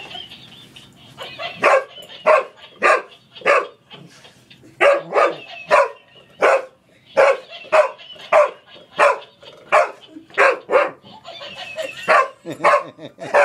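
English Springer Spaniel barking at a toy during play: about twenty short, sharp barks, mostly in quick runs of two or three.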